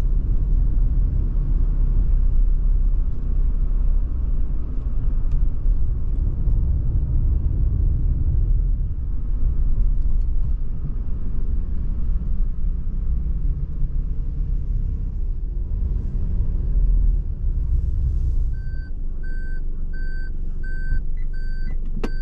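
Low steady rumble of a Suzuki Hustler kei car driving, road and engine noise heard from inside the car. Near the end the car's reversing warning starts: a single high beep repeating a little under twice a second, the sign that reverse gear is engaged.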